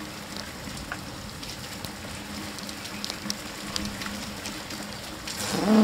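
Steady rain with scattered drop ticks and a faint steady hum under it; a louder, short noise swells up near the end.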